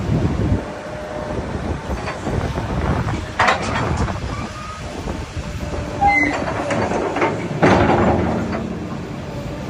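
Heavy machinery running with a steady low rumble, with loud metallic clanks about three and a half, six and eight seconds in and a few short squeaks.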